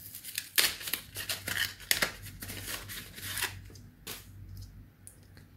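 Kraft paper envelope being torn open and handled: a string of short, crisp paper rustles and tears as the stamp inside is pulled out.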